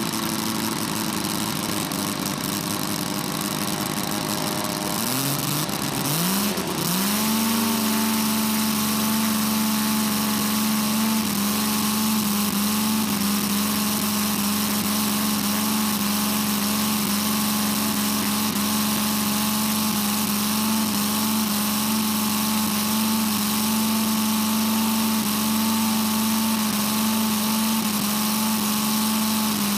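Quarter-scale model Bentley BR2 rotary aero engine running on the ground. About five seconds in its pitch sags and climbs back, and then it runs steadily and slightly louder.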